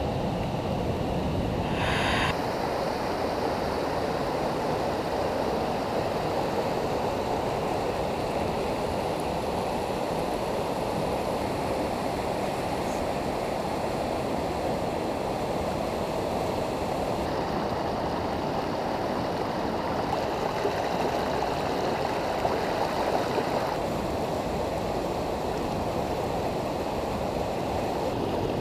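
The Gray Wolf River flowing: a steady, unbroken rush of water.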